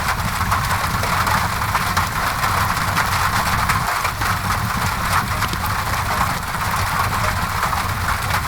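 Steady rain against a window mixed with a crackling fireplace: an even hiss over a low rumble, with scattered faint crackles.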